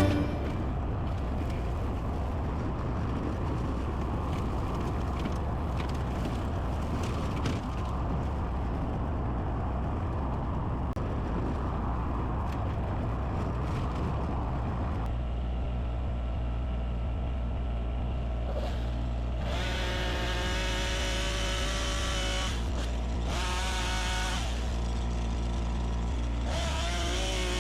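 An engine running steadily with a constant low hum. From about two-thirds of the way through, a higher whining tone with a wavering pitch comes and goes three times.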